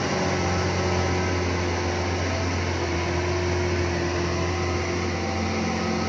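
Large off-road mining dump truck's diesel engine running at a steady speed as the truck drives along, a constant low hum with no change in pitch.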